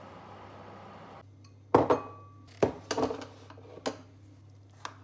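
Kitchenware being set down and handled on a table: a metal baking tin and a ceramic bowl give about half a dozen sharp clatters and knocks, the loudest about two seconds in, with a brief ring after it.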